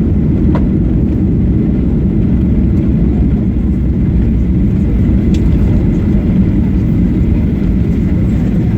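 Steady low rumble inside the passenger cabin of a Boeing 737-800, from its engines and the airframe, with an even level throughout.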